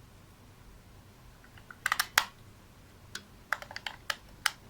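AA batteries being fitted into the battery compartment of a wireless doorbell's bell unit: sharp small clicks and taps, a cluster about two seconds in and a run of them from about three seconds to near the end.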